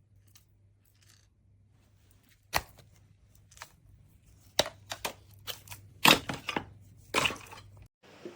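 Clicks and knocks from a cordless handheld vacuum cleaner's plastic parts being handled, with the motor off. One sharp knock comes a couple of seconds in, then a quick run of clicks and knocks near the end.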